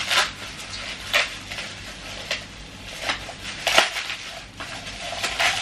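Plastic wrapping crinkling and rustling in short bursts as a gift is pulled out of it by hand.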